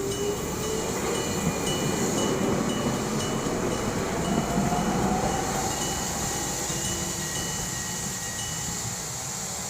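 Level-crossing electric bell ringing over and over while a railway train accelerates past. The train's motor whine rises in pitch and is loudest in the middle, then fades.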